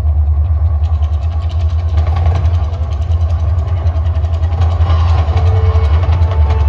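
A man-made volcano attraction's eruption show: a loud, steady deep rumble from its sound system as the eruption begins. Sustained musical tones come in about five seconds in.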